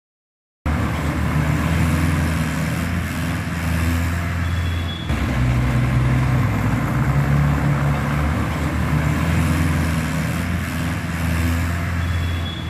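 Tractor diesel engine running steadily, a low even drone. The pitch shifts briefly about five seconds in, then settles again.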